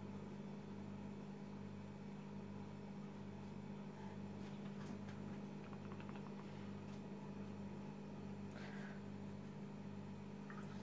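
Steady low background hum with a slight regular pulse about twice a second, and a few faint light taps.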